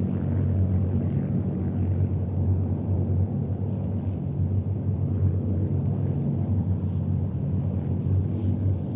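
Steady drone of the piston engines of a massed formation of Spitfires and Hurricanes in flight, a deep even rumble.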